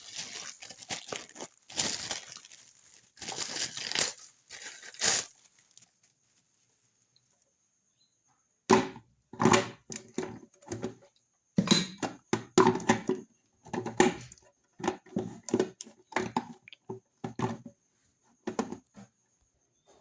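Packaging crinkling and tearing in a run of bursts. After a few seconds' pause, a second run of short rustles and knocks as things are handled.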